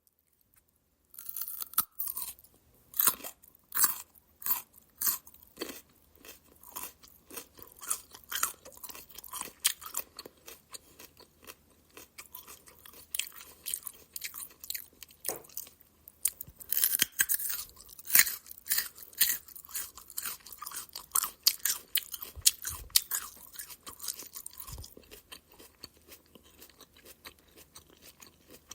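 A person biting into and chewing raw carrot: crisp crunching strokes about one or two a second, with a burst of louder crunches partway through and softer chewing toward the end.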